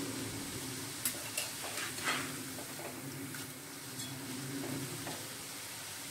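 Sev frying in hot oil in a metal kadhai with a steady sizzle over a low hum. A metal spatula scrapes and taps against the pan a few times about one to two seconds in, and once more near four seconds, as the noodles are turned.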